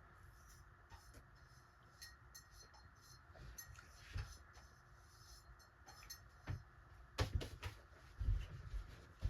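Small metal clicks and clinks of hands working with tools and fan-switch parts, with a few louder knocks and bumps near the end.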